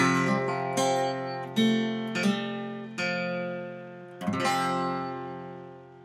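Acoustic guitar strumming the closing chords of a song. A last chord comes about four seconds in and is left to ring out, fading away.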